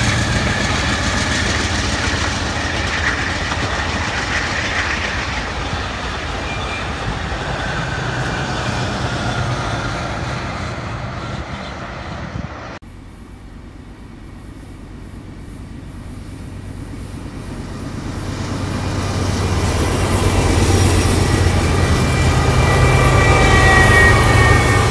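An Amtrak passenger train's bilevel cars rumble past with wheels clacking on the rails, and the sound fades as the train leaves. An abrupt cut about halfway leads to a BNSF freight train approaching: the diesel locomotive's low engine drone and the rolling autorack cars grow steadily louder, with a high wheel squeal near the end.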